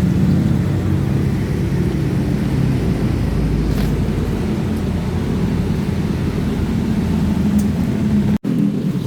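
A motor vehicle running steadily, a low engine hum with road noise. It cuts off abruptly near the end.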